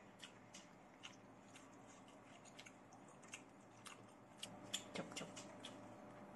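Faint eating sounds: wet lip-smacking while chewing, a scatter of short clicks that grow more frequent in the second half, with chopsticks working in the pan.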